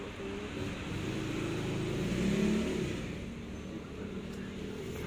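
A motor vehicle's engine running close by, getting louder and rising in pitch about two seconds in, then easing off.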